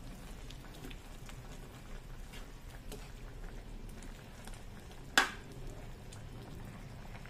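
Pork batchoy broth simmering and bubbling in a wide aluminium pan as a metal ladle stirs through the meat. One sharp knock about five seconds in.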